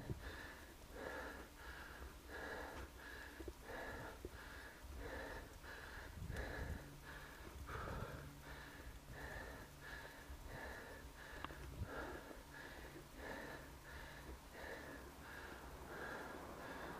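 A cyclist breathing hard and rhythmically, about three breaths every two seconds.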